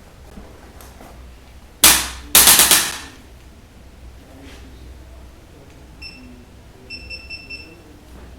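Chiropractic adjusting instrument firing: one sharp loud burst about two seconds in, then a rapid volley of strikes lasting under a second, sounding like a small gun. Near the end, a few short high beeps.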